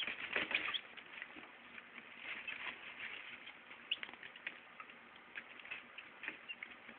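Young chicks peeping in short, high, scattered cheeps, busiest in the first second, with a faint rustle of wood-shaving bedding.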